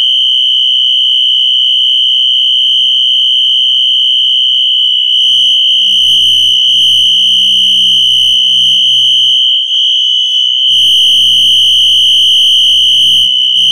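Wheelock NS fire alarm horn sounding in continuous mode at its high volume setting: one loud, steady, high-pitched tone with no pauses.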